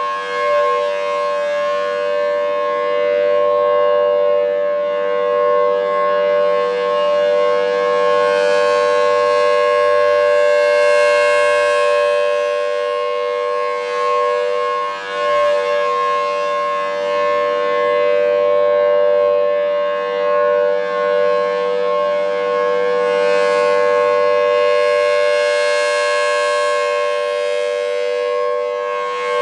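Federal Signal Thunderbolt 1000AT rotating tornado siren sounding its Full Alert signal: one loud, steady, unwavering tone. It grows brighter and fainter slowly, about every quarter minute, as the rotating horn sweeps past.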